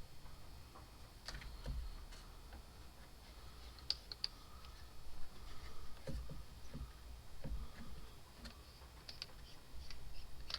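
Scattered light clicks and taps of hands handling an engine's oil catch can, with a few low bumps.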